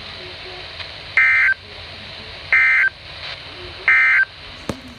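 NOAA Weather Radio's SAME end-of-message data bursts: three short, shrill digital bursts about a second and a half apart, marking the end of a severe thunderstorm warning. Faint radio hiss lies between them.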